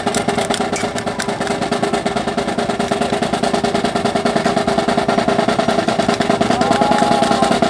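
Snare drum playing a rapid, even roll, with a steady engine drone underneath.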